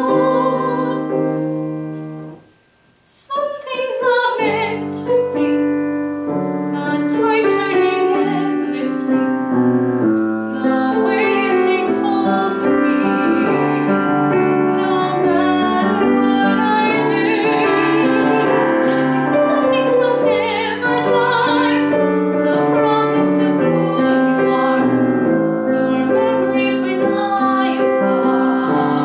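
A young woman singing a musical-theatre song with grand piano accompaniment. About two and a half seconds in, a held note fades to a brief near-silent pause, then voice and piano come back in and carry on together.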